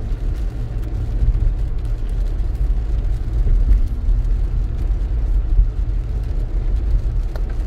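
Steady low rumble of road, tyre and engine noise heard inside a 2018 Toyota Highlander's cabin while it drives at about 30 mph on a wet road.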